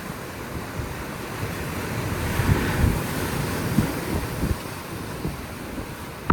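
Sea waves breaking and washing up the shore, with wind buffeting the microphone in low rumbling gusts; the surf swells louder about halfway through, then eases off.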